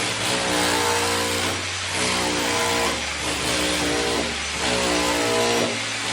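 Background music: a bass line that changes note about every two and a half seconds under repeating chords.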